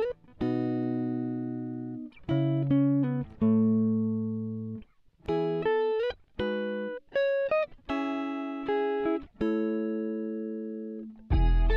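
Background music: a plucked guitar melody in short phrases, each note ringing and fading, with fuller chords and a bass line coming in near the end.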